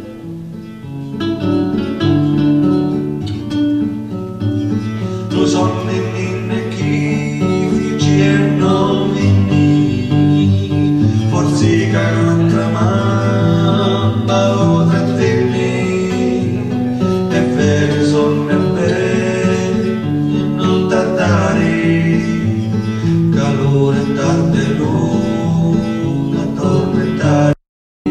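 Acoustic guitar music with a man singing, quiet at first and fuller from about five seconds in. The sound cuts out completely for a split second near the end.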